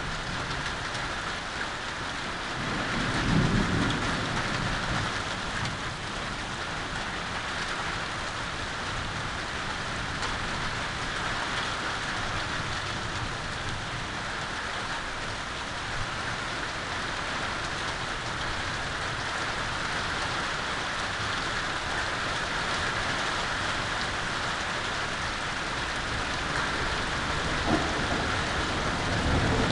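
Steady heavy rain falling during a thunderstorm, with thunder rumbling about three seconds in and again near the end.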